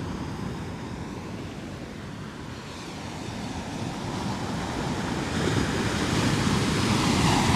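Ocean surf: a wave builds and breaks, the rush of water swelling steadily louder toward the end.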